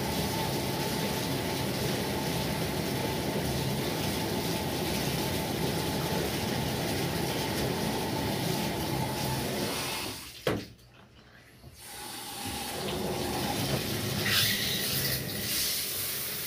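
Water running steadily from a handheld shower head into a bathtub. About ten seconds in there is a sharp click and the rushing stops abruptly, then it builds back up a couple of seconds later.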